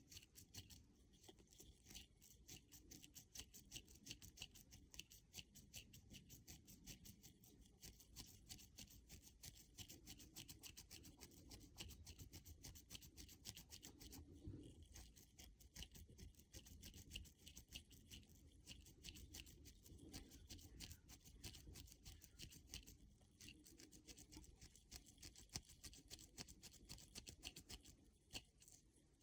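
Faint, rapid scratching and rustling of a crochet hook being worked in and out of a dreadlock, pulling extension hair through.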